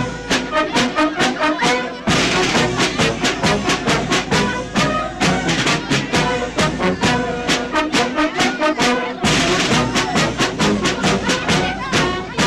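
Brass band music, trumpets and trombones over a steady, evenly spaced beat.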